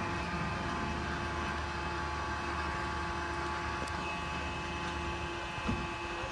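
Chair swing ride starting up as its seats rise and swing out: a steady mechanical hum with several held tones sets in just after the start, over a low rumble. A single thump near the end.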